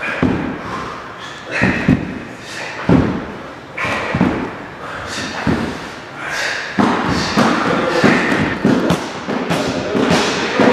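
Repeated dull thuds from karate training. In the first part they come about once a second during jackknife sit-ups on the wooden floor. From about seven seconds in, middle-level roundhouse kicks (mawashi geri chudan) strike a hand-held kick shield in quick succession, two or three a second.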